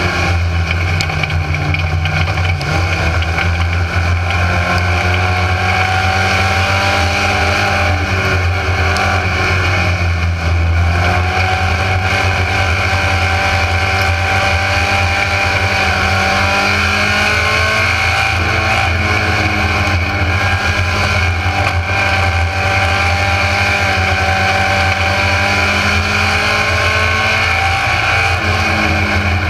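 Mini stock race car's four-cylinder engine heard from inside the cockpit, running hard at racing speed. Its pitch rises and falls over a few seconds at a time as the throttle goes on and off through the turns.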